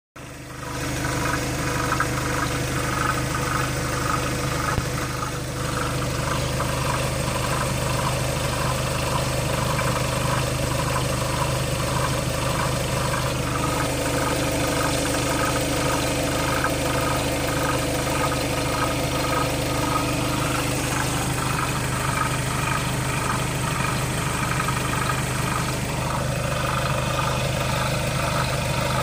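Skoda Octavia III 2.0 TDI four-cylinder diesel engine idling steadily, with a regular pulsing noise over the idle: the weird engine sound that the owner is asking about.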